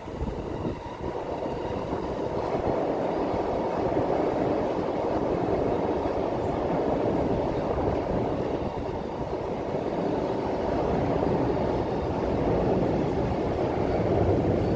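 Keihin-Tohoku Line electric commuter train running past on the tracks: a steady rolling noise of steel wheels on rail.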